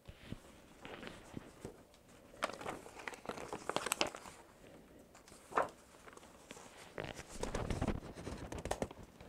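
Sheets of paper rustling and being handled, with short crinkles and light knocks throughout and a duller bump around eight seconds in.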